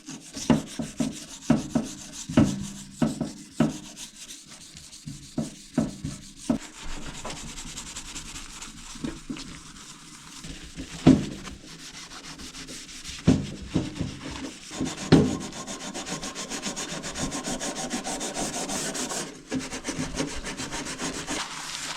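A toothbrush scrubbing toothpaste back and forth on a greasy toaster oven door in rapid rubbing strokes. There are a few louder knocks midway, and the scrubbing turns faster and steadier in the second half.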